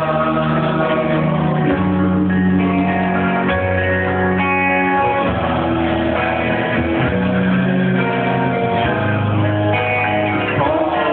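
Music: a slow love song with guitar and a steady bass line.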